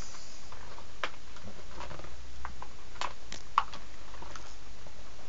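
Plastic blister packaging and cardboard of a Nerf dart pack crinkling and clicking as it is worked open: scattered sharp crackles, the loudest about three and a half seconds in.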